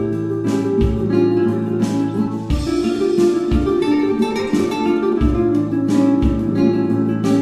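Background music: plucked acoustic guitar with a low beat.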